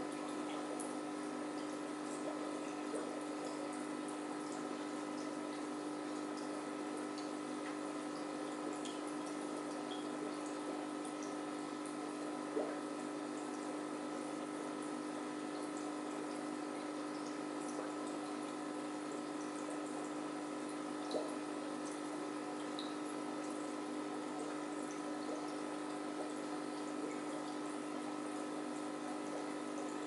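Aquarium filter and pump running: a steady trickle of water over a constant hum, with a few faint ticks.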